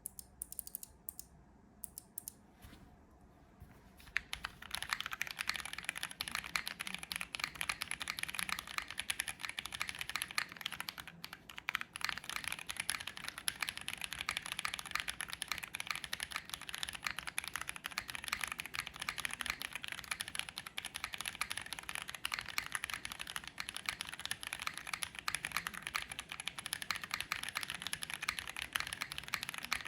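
Typing on a Tiger80 mechanical keyboard with lubed Rosso Corsa tactile switches, a polycarbonate plate, GMK keycaps and no case foam. A few single keystrokes come first, then steady fast typing from about four seconds in.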